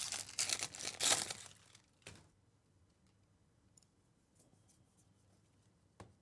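Plastic wrapper of a 2024 Bowman baseball card pack being torn open, crinkling for about two seconds. Then faint ticks of cards being flipped through, and a single sharp click near the end.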